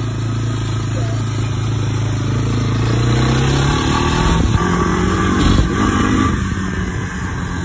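Honda Fourtrax 300 ATV's single-cylinder four-stroke engine idling steadily, then rising in revs about three seconds in and running unevenly at higher revs.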